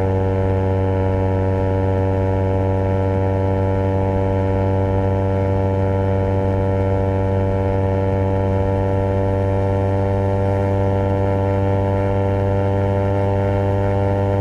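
Honda CBR250RR parallel-twin engine through a Project 79 slip-on exhaust, running at a steady cruising speed. It holds one even engine note whose pitch edges up slightly.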